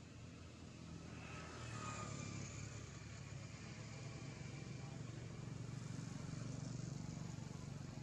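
Faint motor vehicle engine running, growing louder after about a second in and strongest near the end of the stretch.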